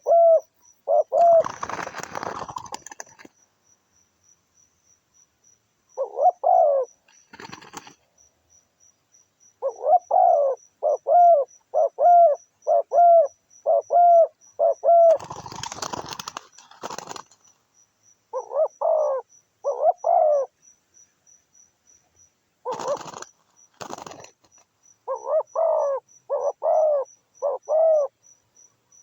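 Doves cooing in runs of short, quick notes, broken by several brief bursts of rustling or wing-flapping. A faint, high, regular ticking sits under it.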